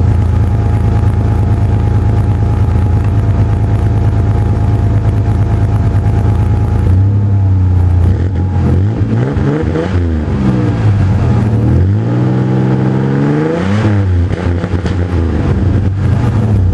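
1993 Ford Ranger's engine, warming up after a cold start in freezing weather, heard at the tailpipe of its Gibson aftermarket exhaust. It runs at a steady idle for about seven seconds, then is revved up and down several times, the exhaust note rising and falling, before settling back to idle near the end.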